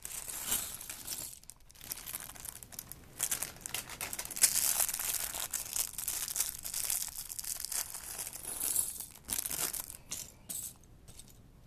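Thin plastic bag crinkling as a pile of plastic LEGO bricks is tipped out and handled, the bricks clicking and rattling against each other, with a long crinkly rush about halfway through.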